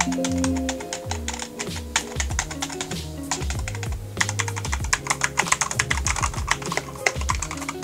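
Keys of an ordinary full-size computer keyboard being typed on rapidly, many clicks a second, over background music.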